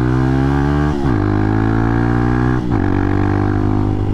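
Hawk 250's single-cylinder four-stroke engine pulling under throttle, its pitch creeping up, then dropping sharply about a second in and again near three seconds as the rider shifts up, and running steady after.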